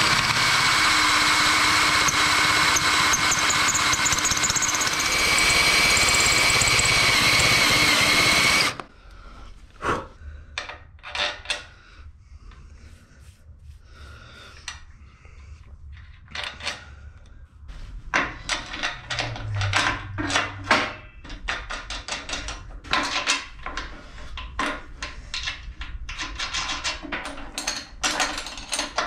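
Cordless DeWalt drill running a countersink bit into the steel frame with a steady whine for about nine seconds, the bit cutting into weld filler where the old holes were filled in. The drill stops suddenly, and scattered metallic clicks and knocks of parts being handled follow.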